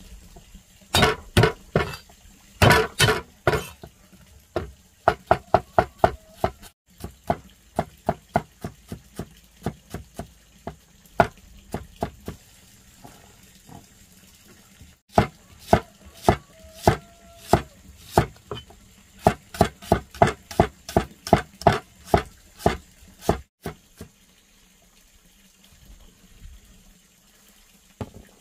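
Repeated sharp knocks in quick runs of several a second, loudest near the start and fading to a few faint ones near the end.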